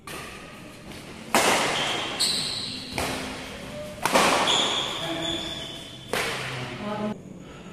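Badminton rally: about six sharp racket strikes on the shuttlecock, a second or so apart, each followed by echo in a large hall.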